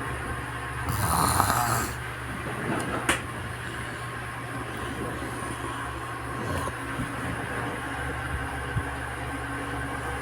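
A baby snoring, with one louder snore about a second in, over a steady low hum. A short click sounds about three seconds in.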